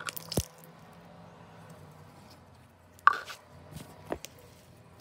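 Slime squeezed between the hands, its trapped air bubbles popping: a few short sharp pops and squishes, the loudest about three seconds in.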